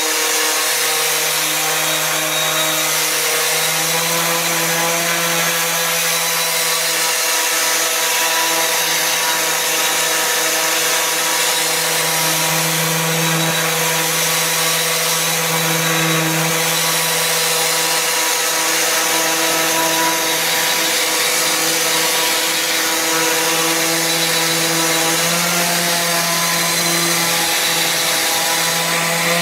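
Parkside random orbital sander running steadily, its coarse 40-grit 125 mm hook-and-loop disc scrubbing bare pine: an even motor hum under a constant sanding hiss.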